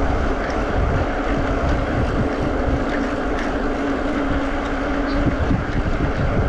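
Wind buffeting the microphone of a moving rider, with a steady rumble of the ride underneath and a faint hum that fades a little over five seconds in.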